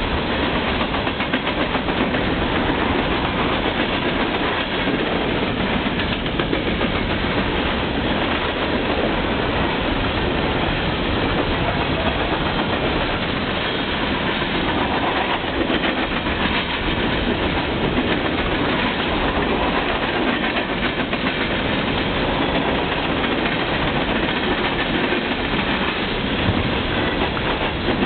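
A loaded coal train's hopper cars rolling past at high speed close by, with a steady, unbroken rush and rumble of steel wheels on the rails.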